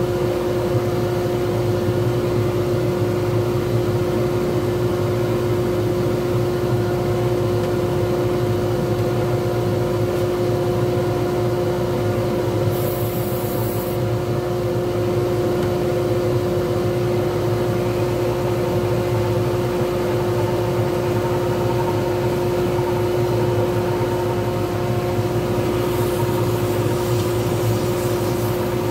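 Wood lathe running steadily, a motor hum with a steady whine as a pen blank spins between centres. Near the end an abrasive pad pressed against the spinning blank adds a hiss.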